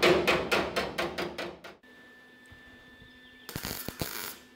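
Rapid hammer taps on a sheet-metal patch panel, about six a second, that stop nearly two seconds in. About three and a half seconds in comes a short crackling burst of MIG welding, lasting under a second: a quick stitch weld on the rust-repair patch.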